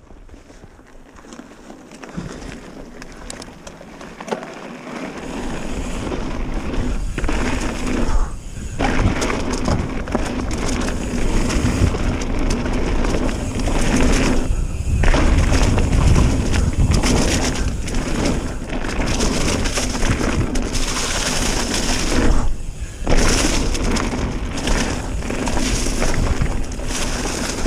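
Trek Remedy mountain bike descending a rough downhill trail: tyres rumbling over dirt and rock, the bike clattering and knocking, and wind rushing over a GoPro Session's microphone. It grows louder over the first few seconds as speed builds, then stays loud with a few brief dips.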